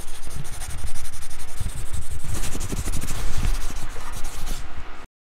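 Sound effect for an animated logo sting: a loud, even noise spread across the range with irregular low rumbles beneath it, cutting off abruptly about five seconds in to dead silence.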